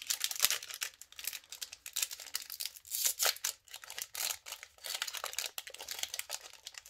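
Foil booster-pack wrappers crinkling and crackling in the hands as they are handled, a quick string of short crackles with a few louder snaps.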